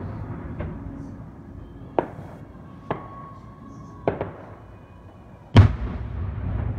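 Aerial firework shells bursting: a series of sharp bangs, the loudest about five and a half seconds in, followed by a low rumble.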